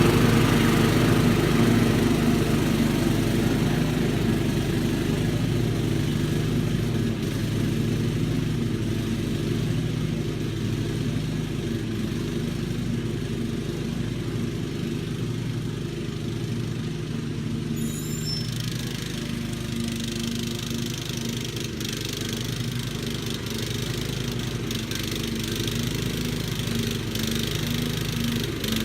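Kohler Command CV14 14 hp single-cylinder engine on a riding mower running steadily after a Walbro carburetor rebuild, getting a little quieter over the first half.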